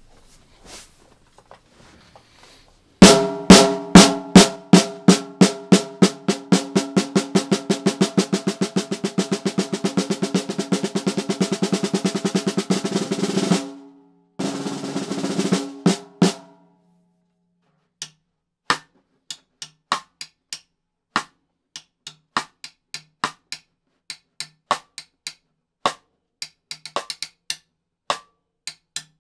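Mapex MPX 8x14 maple snare drum with Pearl Super Hoops, played with sticks. A few seconds in, single strokes speed up into a long, even roll that stops about halfway through. A shorter roll follows, then separate, lighter strokes.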